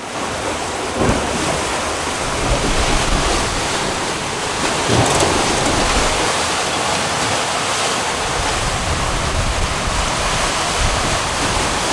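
Pretty loud rush of wind-driven waves around a sailing catamaran in choppy seas, with wind buffeting the microphone.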